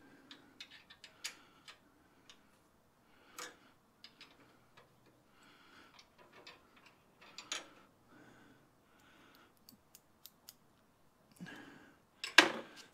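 Scattered light metallic clicks and clinks of small metal pieces and a clamp fixture being handled in a metal-cutting bandsaw's vise, with a louder clatter near the end. The saw is not running.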